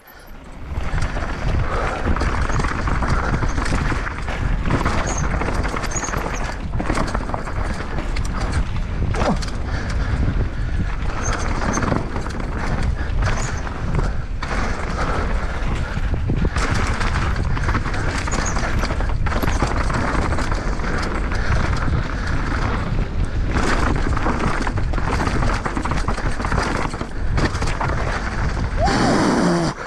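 Mountain bike descending a rough downhill trail at speed: tyres on dirt and rocks, with the frame and chain rattling and knocking over bumps. Wind rushes on the microphone.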